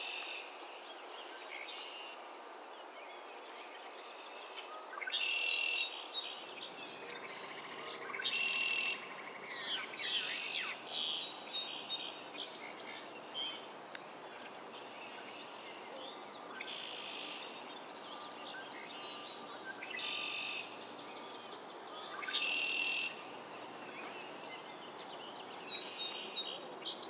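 A chorus of spring swamp birds: a loud song phrase of about a second comes five times, every few seconds, with other birds chirping and calling in between over a steady low background hum.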